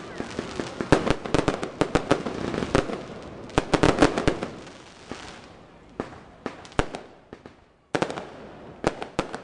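Aerial fireworks shells bursting overhead in rapid crackling and popping. The bursts are densest through the first four seconds and loudest about four seconds in, then thin to scattered bangs, with a sudden sharp one near the end.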